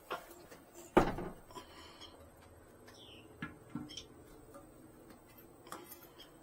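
A sharp, hard knock about a second in, followed by a few lighter clicks and clinks of toilet parts being handled and set against the porcelain.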